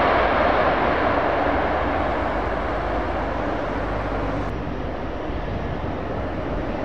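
Airbus A330-200 jet engines (Pratt & Whitney PW4000) running as the airliner rolls along the runway after landing, a steady noise that fades away. About four and a half seconds in it gives way to quieter, steadier noise.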